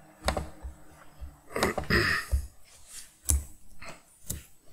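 Several sharp, separate clicks of a computer mouse and keys, with a short hiss about two seconds in.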